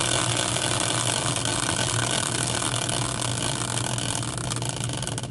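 Hand-spun caster wheel, a rubber-tyred wheel in a metal swivel bracket, whirring steadily on its bearing. The whir fades slowly as the wheel loses speed, and faint clicks come in near the end.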